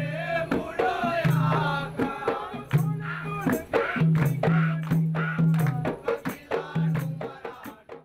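Music: a melody that bends like singing over a steady beat of shaker or rattle percussion, with sustained low bass notes. It stops abruptly at the end.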